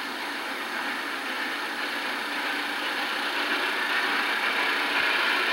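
Texas State Railroad No. 300, a 2-8-0 steam locomotive, working upgrade while still out of sight. It is a steady rushing sound that grows gradually louder as it approaches.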